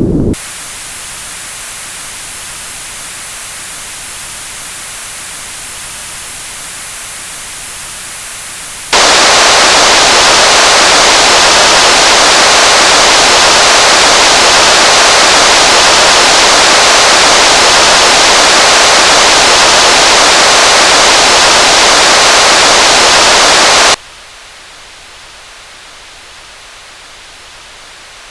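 Synthesized noise switching abruptly between steady settings: a thin hiss lacking the low end, then much louder full-range white noise for about fifteen seconds, then a quieter thin hiss again.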